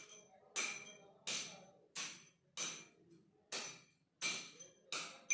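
Steel tamping rod with a rounded end striking aggregate chips packed in a cylindrical measure: a steady series of tamping strokes, about one and a half a second, each a sharp clink with a short metallic ring. The aggregate is being compacted in layers, 25 strokes per layer, for the aggregate impact value test.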